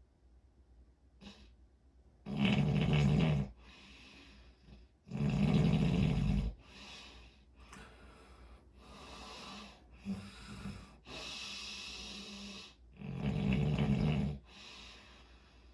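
Snoring: three loud snores, the first two about three seconds apart and the third about eight seconds later, with softer breaths in between.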